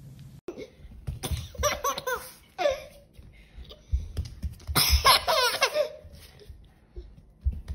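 A baby laughing and squealing in short bursts, about a second in and again around five seconds in, with a few soft thumps.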